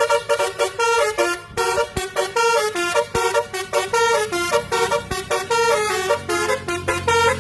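Basuri musical vehicle horn playing a fast melody of short, bright notes that change pitch several times a second.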